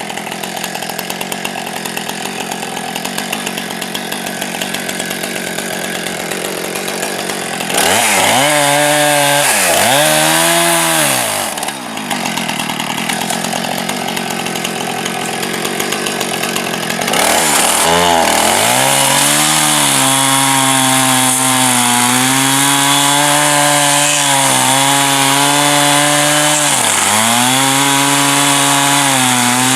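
Saker 4-inch cordless mini chainsaw cutting through wood. Its electric motor hums with a pitch that sags and recovers as the chain bites under load. It is quieter for the first several seconds and pauses briefly partway through.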